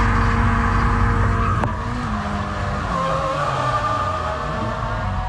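A drift car's engine heard from inside the cabin during a drift lap. It is held at steady high revs, then the note drops after a click about a second and a half in. Tyres squeal as the car slides.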